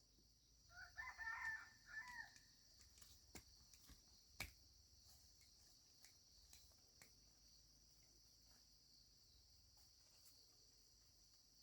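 A rooster crows once, faintly, about a second in, the call rising and then falling away. A few light clicks follow, over a steady high-pitched drone.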